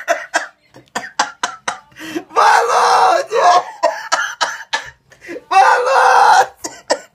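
A man laughing helplessly in short, wheezing, cough-like gasps. Twice he breaks into a long, loud, strained shout, the first of them "Volodya!"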